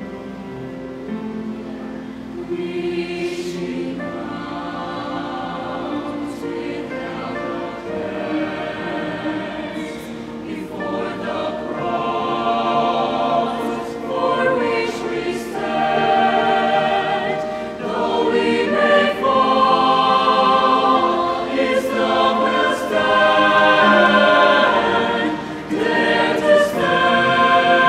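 Mixed choir of men's and women's voices singing in parts, growing steadily louder through the passage.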